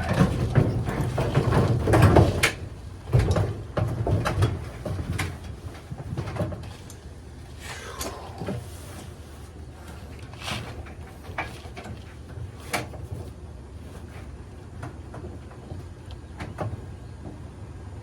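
Knocks, clatter and sharp clicks of dryer parts and panels being handled during disassembly, loudest and busiest in the first few seconds, then sparser single clicks.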